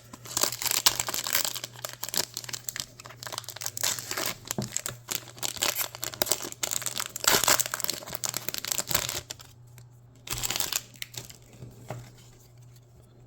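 Foil wrapper of a Pokémon card booster pack crinkling as it is handled, a dense crackling for about nine seconds, then one short burst of crinkling a little later before it quietens.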